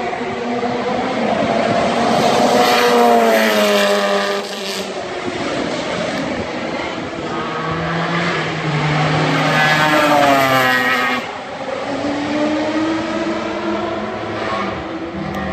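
Race car engine under hard acceleration, its revs climbing and then dropping sharply twice, about four and eleven seconds in, as at gear changes or lifting for a corner.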